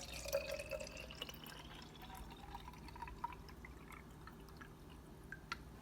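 Tap water being poured into a plant humidifier's water tank, a faint trickle whose pitch rises slowly as the tank fills.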